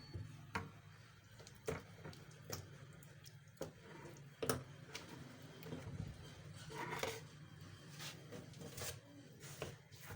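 Batter-coated fish heads being handled and set down on a plate: soft wet squishes and scattered light clicks and knocks, over a low steady hum.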